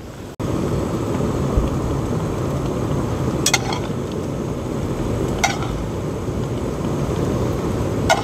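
Pot of spicy soft-tofu stew boiling hard, a steady bubbling, with three sharp clicks about two seconds apart.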